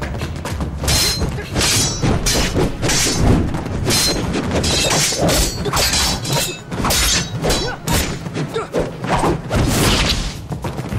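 Movie fight sound effects: a rapid run of baton swishes, punches and body hits, a few strikes ringing with a short metallic clang, over a tense music score.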